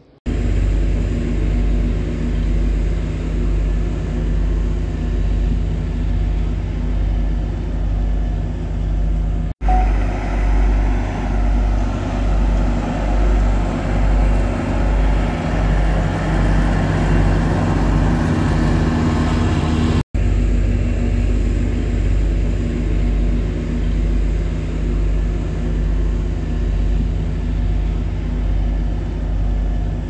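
Heavy diesel machinery, such as the road roller working fresh asphalt, running with a steady low rumble that pulses about once a second. The sound cuts out abruptly twice and comes straight back with the same rumble.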